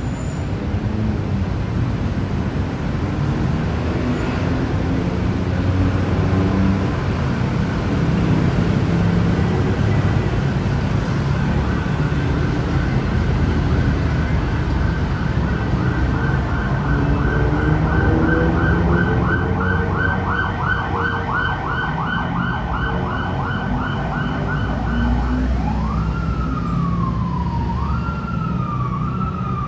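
Road traffic running steadily, with an emergency vehicle's siren from about twelve seconds in. The siren is first a fast warbling yelp, then a slower wail that rises and falls twice near the end.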